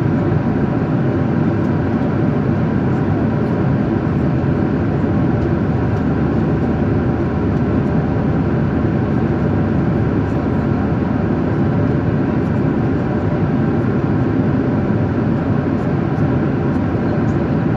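Steady, even engine and air noise of a passenger jet, heard from inside its cabin.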